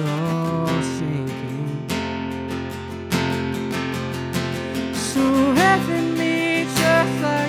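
Acoustic guitar strummed steadily, with a man singing over it. The voice grows stronger about five seconds in.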